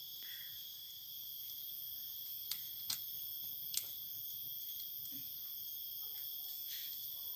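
Steady high-pitched chorus of insects, with three faint clicks in the middle.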